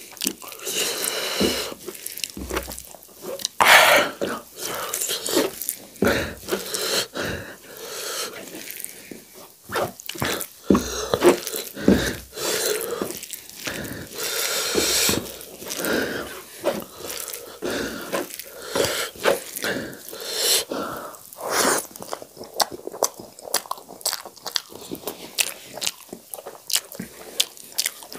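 A hand squishing and mixing wet cooked rice with sag (cooked leafy greens) on a tray: irregular wet squelches, pats and clicks, with no steady rhythm.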